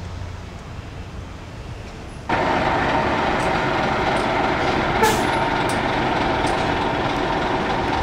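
Lorry's diesel engine running steadily, preceded in the first two seconds by a quieter low rumble.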